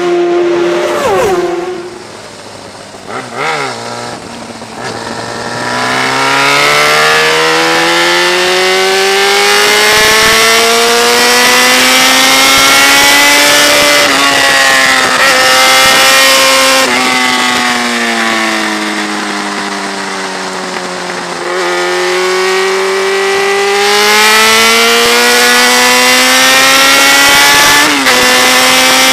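Sport motorcycle engine running hard. It is quieter for the first few seconds, then its pitch climbs and falls in long sweeps as the rider accelerates and eases off, with a few sudden drops in pitch.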